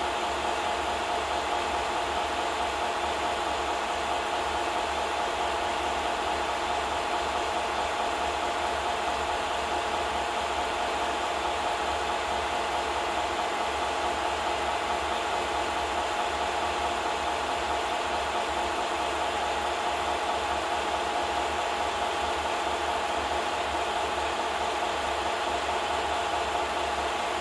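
Film projector running: a steady mechanical whir with hiss and a low flutter, unchanging throughout.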